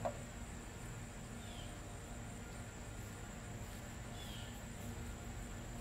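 Steady high-pitched chorus of insects such as crickets, with a low hum underneath and two faint short chirps.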